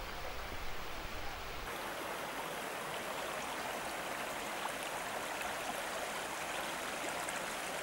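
Shallow stream running over a stony bed: a steady rush of water. A low rumble in the first couple of seconds stops, leaving the water sound alone.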